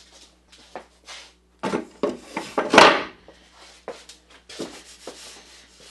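Wooden boards being handled and laid down onto metal bar clamps: scattered knocks and scrapes, with the loudest clunk about three seconds in.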